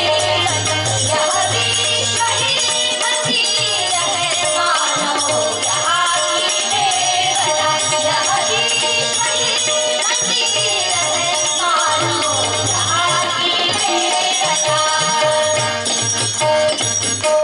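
Devotional bhajan sung by a women's group over instrumental accompaniment, with a steady, fast jingling rattle of percussion throughout. The music cuts off abruptly at the very end.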